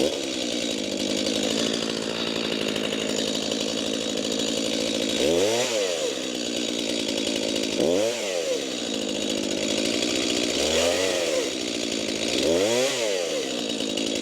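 Stihl chainsaw running while bucking cherry logs into firewood rounds. The engine note rises and falls back about four times, every two to three seconds.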